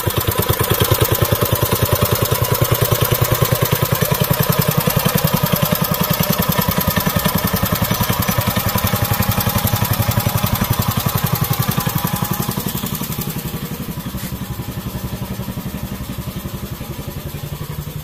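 Craftsman-badged Briggs & Stratton 5 hp single-cylinder engine on a mini bike running with an even, fast exhaust beat. It becomes somewhat quieter about two-thirds of the way in.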